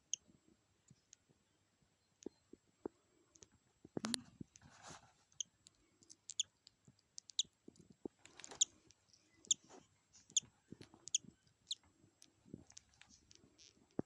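Faint, brief high-pitched peeps from a budgerigar chick hatching out of its egg, mixed with scattered small clicks and scratches and one louder knock about four seconds in.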